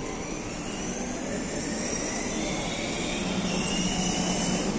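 Electric motor and gearbox of a battery-powered children's ride-on toy car whining, with several rising glides in pitch as it speeds up. A low steady hum comes in about three seconds in and grows louder toward the end.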